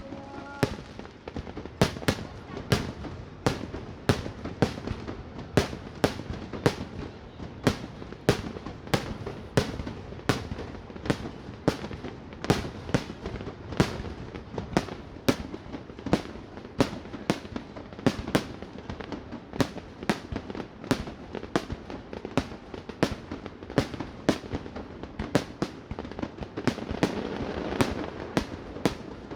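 Fireworks display: a steady run of sharp bangs from bursting shells, roughly two a second, over a low rumbling background.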